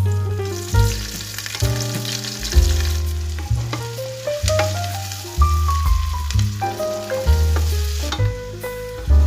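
Food sizzling in hot oil in a pan, with background music playing over it: a bass note changing about once a second under a melody. The sizzling drops out briefly near the end.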